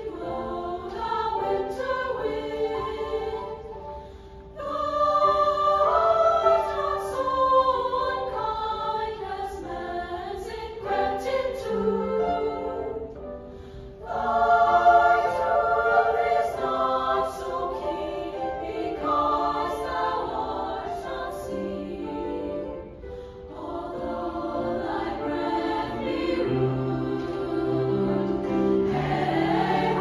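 Treble choir of teenage girls singing in parts, in long phrases with short breaks about four and fourteen seconds in.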